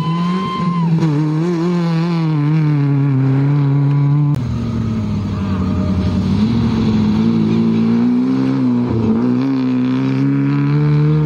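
Rally car engines at high revs on a dirt stage, accelerating hard out of a corner and past. The engine note climbs and holds, changes abruptly a little over four seconds in, then rises steadily through the second half.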